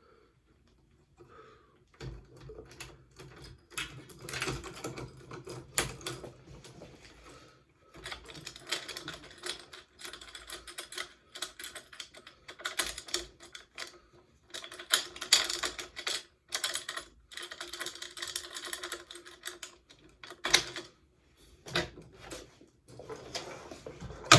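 Quick-release bicycle rack and delivery box being handled and fitted: long runs of irregular clicks, knocks and rattles, with short pauses, starting about two seconds in.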